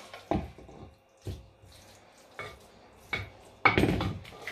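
A spoon scraping and knocking against a granite-coated non-stick saucepan as moist rice mixed with buttermilk curry is scraped out into a clay pot: a few separate scrapes and knocks, the loudest near the end.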